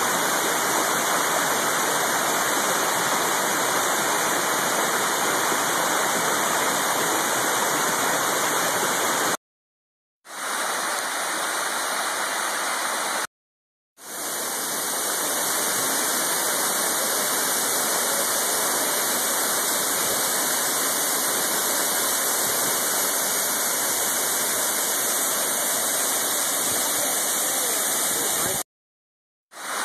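Waterfall rushing, a steady, loud roar of falling water. It cuts to dead silence three times for under a second, each time coming back in, as one clip joins the next.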